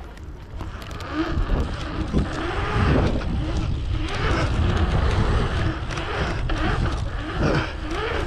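Bicycle tyres rolling fast over a pumptrack's asphalt, with wind noise on the handlebar-mounted microphone; the rolling rumble swells about a second in and rises and falls in pitch as the bike pumps over the rollers.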